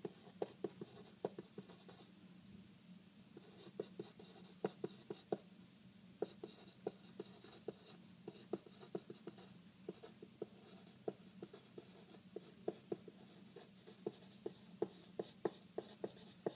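Marker pen writing on paper: a quick run of short, scratchy strokes and taps as words are written, with a brief pause about two seconds in.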